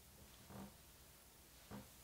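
Near silence, with two faint, brief handling sounds about half a second in and near the end as gloved hands turn a coiled USB-C charging cable.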